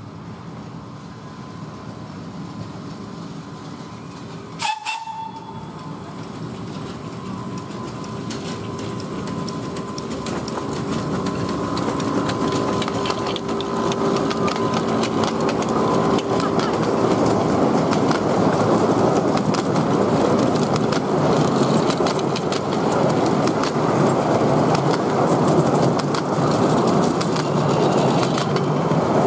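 Miniature railway train approaching and running past, the hum of the locomotive growing as it nears, then the clatter of wheels on the rails getting louder from about twelve seconds in. A brief toot about five seconds in.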